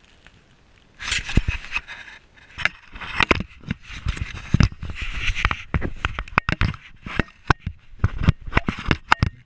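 Handling noise from an action camera being moved on its mount: irregular scraping, rubbing against clothing and sharp knocks, starting about a second in.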